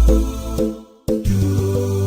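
Background music with a steady beat, cutting out for a moment about halfway through before the next phrase starts.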